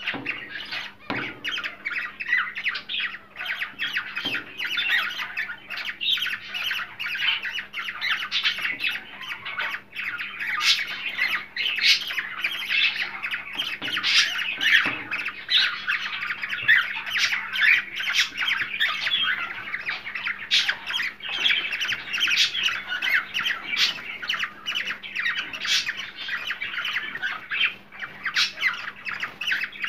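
Cockatiels squawking and chattering without pause, many short calls running into one another, over a faint steady low hum.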